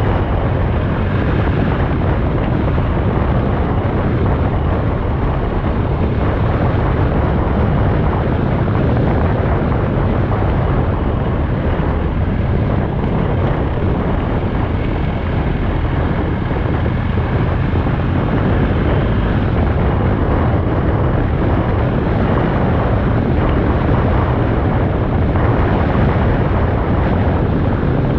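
Steady, loud wind rumble on the microphone of a camera moving at road speed, heaviest in the low end, with no distinct events.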